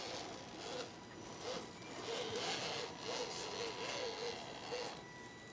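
Radio-controlled scale crawler's electric motor and drivetrain whining in short throttle bursts as it climbs a wooden ramp, the pitch wavering with each push.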